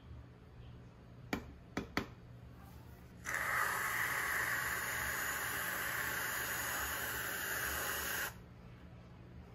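Aerosol whipped cream can spraying cream onto a milkshake: a steady hiss lasting about five seconds that cuts off abruptly. A few sharp clicks come just before it.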